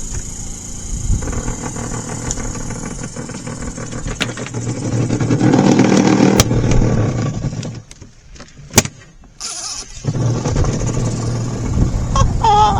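Small RV washing machine running loudly with junk thrown inside it: a steady motor hum with rattling and grinding. About eight seconds in it cuts out for about two seconds, with one sharp click, then starts running again.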